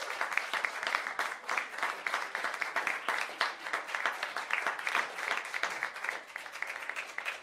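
Crowd applause: many hands clapping at once, thinning out near the end.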